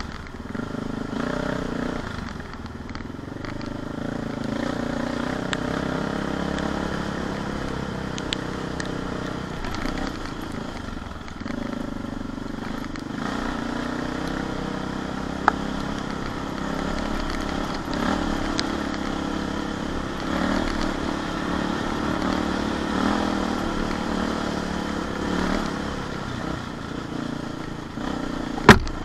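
CCM 644 R30 supermoto's big single-cylinder engine running at low revs along a rough dirt lane, its note rising and falling with the throttle, with light rattling from the bike over the bumps. A single loud, sharp crack near the end.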